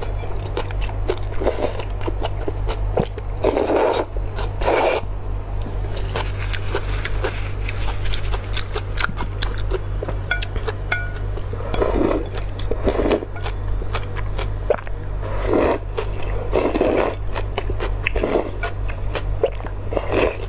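Thin glass noodles being slurped up from a bowl of broth, close-miked: repeated sucking slurps about a second long, with quieter chewing between them, over a constant low hum.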